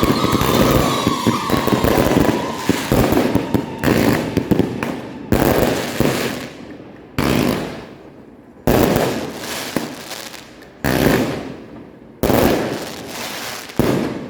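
Fireworks display: a dense crackling barrage with a faint falling whistle for the first few seconds, then single shell bursts about every one and a half seconds, each a sharp bang that fades away.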